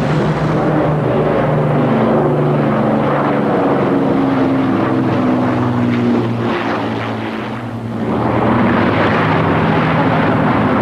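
Avro Lancaster bomber flying low overhead: the continuous drone of its four Rolls-Royce Merlin piston engines and propellers, the pitch shifting as it passes. The sound dips briefly about seven seconds in, then swells again.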